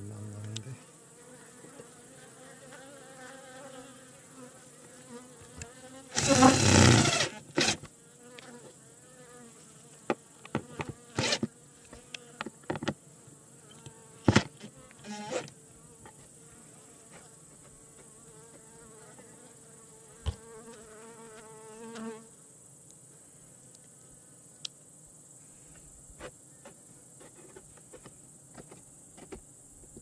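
Honeybees buzzing steadily at the hive entrance, fading in the last third. About six seconds in, a cordless impact driver runs in one loud burst of about a second, driving a screw into the wooden entrance strip. Scattered sharp clicks and taps follow.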